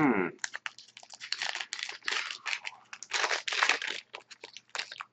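Hockey trading cards being handled and flipped through by hand: a quick, irregular run of papery clicks, snaps and rustles.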